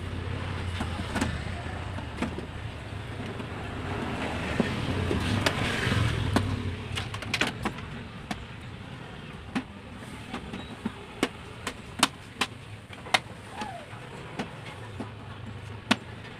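Plastic clips of an LED TV's front bezel clicking into place as the frame is pressed onto the panel: a string of sharp clicks, more frequent in the second half. A steady low hum runs underneath, swelling for a few seconds in the middle.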